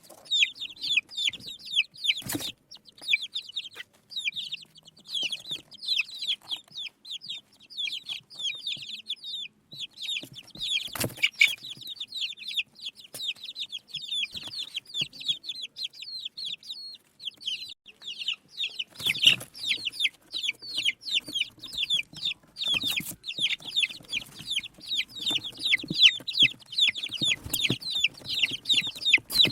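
A group of desi baby chicks peeping continuously, many short high peeps that each fall quickly in pitch and overlap one another. A few sharp knocks sound now and then.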